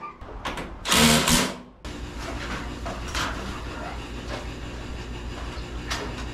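A power drill runs in one short burst about a second in. It is followed by a steady low mechanical hum with faint ticks.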